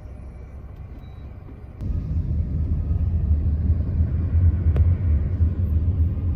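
A low, steady rumble that comes in abruptly about two seconds in, after a quieter low background.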